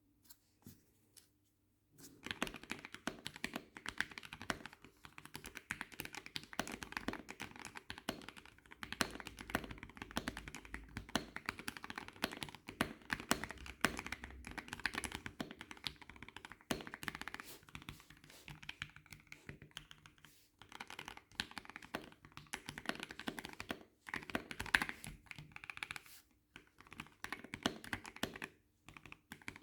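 Fast typing on a custom mechanical keyboard with Krytox 205g0-lubed switches and PBT keycaps: a dense run of keystroke clacks starting about two seconds in, with brief pauses near the end.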